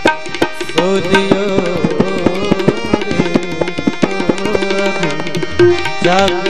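Instrumental interlude of a devotional bhajan: tabla playing a quick, steady rhythm under a melody line with bending, ornamented notes.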